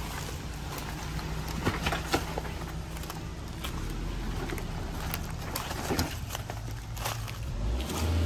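Suzuki JB74 Jimny's 1.5-litre four-cylinder engine running at low revs off-road, with scattered knocks and clicks over the top, growing louder near the end.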